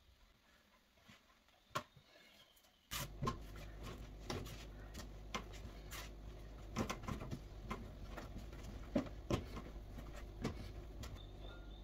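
Hands kneading pan dulce dough on a table: irregular soft knocks, taps and squishes as the dough is pressed and pushed. A steady low hum comes in about three seconds in.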